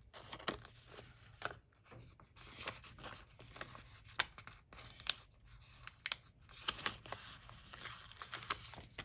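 A paper sticker sheet rustling and crinkling in the hands while a sticker is peeled off its backing, with sharp small clicks in between.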